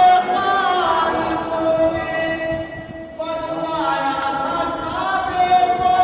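A man singing a devotional song into a microphone, amplified over a sound system, holding long notes with a brief break about three seconds in.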